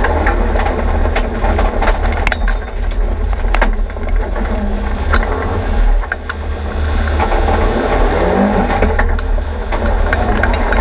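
Mitsubishi Lancer Evolution X's turbocharged 2.0-litre four-cylinder engine under hard driving, heard from inside the stripped, roll-caged cabin: a heavy low drone with road noise and many sharp clicks and rattles. The engine note drops briefly about six seconds in before pulling again.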